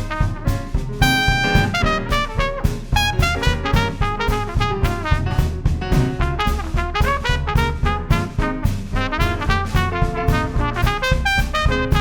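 Traditional jazz band playing up-tempo: trumpet and trombone lead over piano, bass and drums, with clarinet in the lineup, and a steady beat throughout. One high note is held for about half a second, about a second in.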